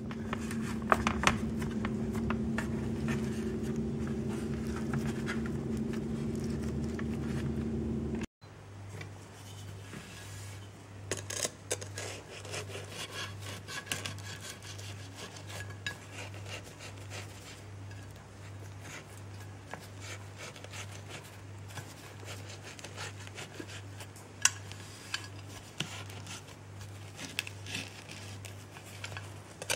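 A knife saws and scrapes through a baked herb salt-dough crust on a ceramic dish, with scattered clicks and rasps over a low hum. Before that, for the first several seconds, a steady hum and light handling noise as the raw dough is pinched shut. The sound changes abruptly at the switch between the two.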